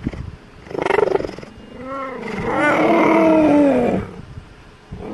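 Cheetah calling up close: a short rough call about a second in, then two meow-like calls that rise and fall in pitch. The second call is long and is the loudest, ending about four seconds in.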